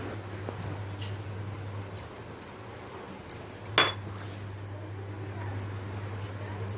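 A kitchen utensil clinks once sharply against a pot about four seconds in, amid a few faint clicks, over a low steady hum.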